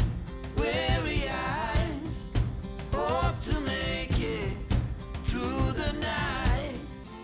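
Background pop-style song: a vocalist singing a melody over a band with a steady beat, the backing dropping away just at the end.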